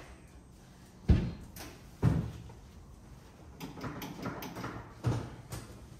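Three heavy thumps on the car body, about a second, two seconds and five seconds in, with lighter clatter and rustling in between. This is the sound of car doors and the rear seat being handled, not of the engine or starter.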